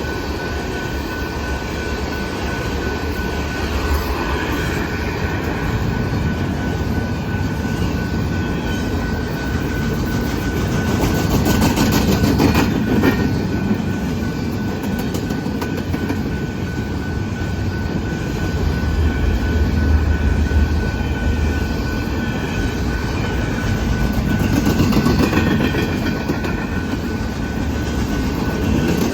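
Canadian Pacific manifest freight train's cars rolling past, a steady rumble of wheels on rail that swells and eases, with a thin steady high tone throughout and a run of clicks about twelve seconds in.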